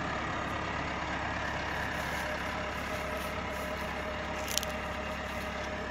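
Komatsu PC160LC excavator's diesel engine idling steadily, with one brief click about four and a half seconds in.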